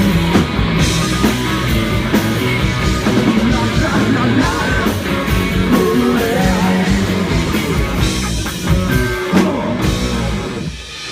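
Live rock band playing loud guitar-driven music. The song ends about a second before the close.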